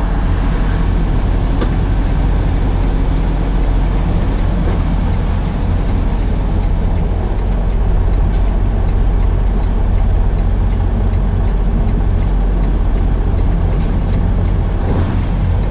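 Semi-truck's diesel engine idling steadily while the truck stands still, heard from inside the cab as a constant low rumble.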